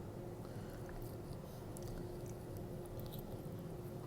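Soft, faint chewing of cheesy pizza fries, with scattered small mouth clicks over a faint steady hum.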